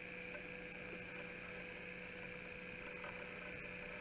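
Steady hiss with a low, even hum and no distinct event: the background noise of the recording, with no audible handling sound.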